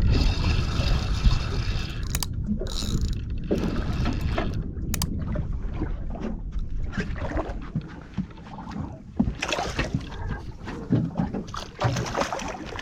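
Wind buffeting the microphone and water lapping against the hull of a small drifting fishing boat, with a few brief knocks.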